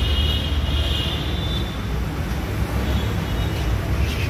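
Steady low rumble of passing road traffic with a hiss over it. A faint high-pitched tone fades out about a second and a half in.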